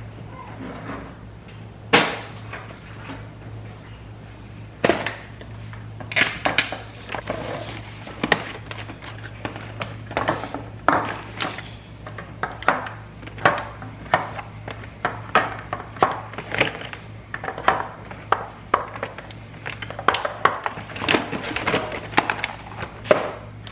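Eggs being set one by one into a clear plastic egg holder: a run of irregular light clicks and knocks of eggshell and plastic, about one or two a second, over a low steady hum.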